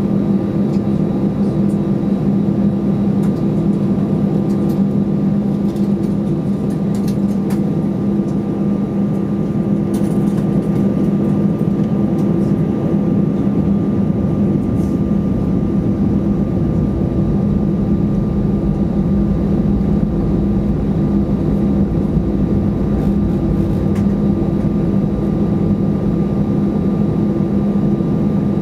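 Steady drone of an Airbus A320's jet engines at taxi idle, heard inside the cabin as a constant low hum with a couple of held tones.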